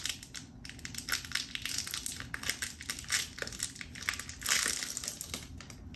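Plastic candy-bar wrapper being torn and peeled open by hand, crinkling with irregular sharp crackles, busiest about four and a half seconds in.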